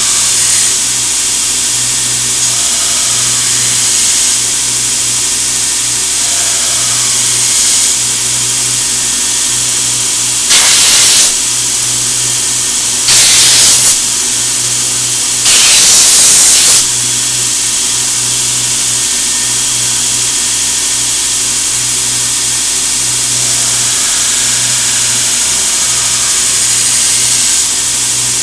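Belt grinder running steadily with a constant hum while a CPM 15V steel knife blade is ground on the belt to a flat grind. Around the middle come three short, loud blasts of a compressed-air blowgun, the longest about a second.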